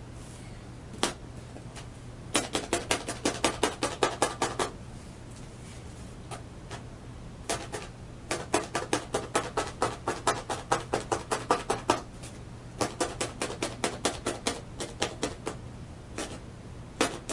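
Felting needle jabbing rapidly through wool roving into the paper template beneath, tacking the fibres down: runs of sharp taps at about five or six a second, broken by short pauses.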